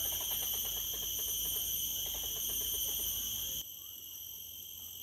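Tropical forest insect chorus: several shrill, steady high-pitched drones at once, with a rapid pulsing chatter lower down. About three and a half seconds in, it cuts abruptly to a quieter stretch of the same kind of chorus.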